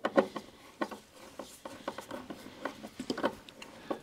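Hand screwdriver driving screws to fasten a metal face-frame hinge mounting plate into a cabinet side: a string of irregular clicks and knocks, the loudest in the first half second.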